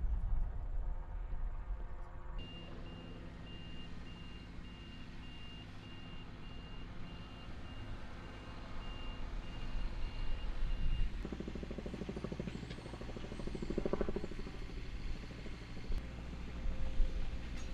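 Vehicle backup alarm beeping steadily at about two beeps a second over a running engine. The beeping stops about eleven seconds in, and the engine sound then rises for a few seconds.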